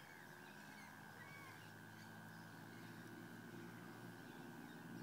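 Near silence: faint outdoor ambience with a steady high-pitched hum and a faint low drone.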